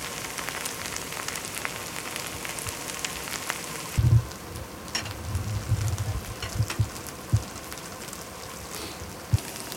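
Chive and shrimp pancake sizzling in oil in a grill pan: a steady crackling hiss. About four seconds in, the hiss drops and a few low thumps and sharp knocks follow.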